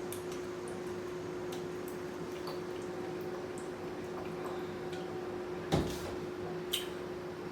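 Quiet wet eating sounds: small mouth clicks and squishy chewing, with a sharper click or knock about six seconds in and another about a second later, over a steady faint hum.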